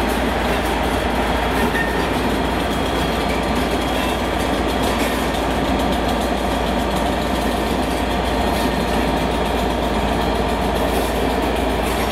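British Rail Class 37 diesel locomotive 37 025 passing at close range, its English Electric engine running, followed by its coaches rolling steadily past with wheel clatter on the rails.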